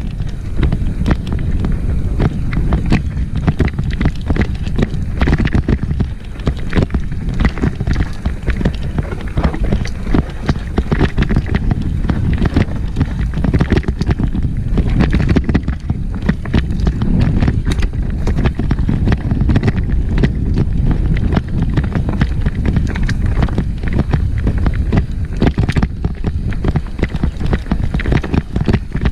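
Downhill mountain bike descending a rough, rocky, muddy trail: steady wind rush on the microphone over constant rattling and knocking as the bike hammers over rocks.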